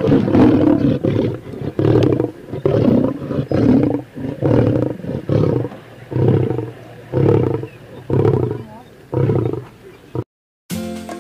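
Lion giving a long series of deep rhythmic grunts, about one a second, which stop abruptly about ten seconds in.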